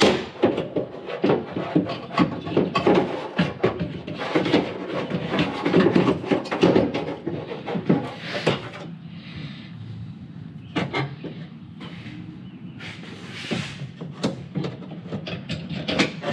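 Hand tools and metal parts clicking, clinking and knocking against a pickup's tailgate as a part is worked out with a 10 mm tool. The clatter is dense for the first half, then turns to scattered clicks after about 8 seconds, with a couple of brief rustles.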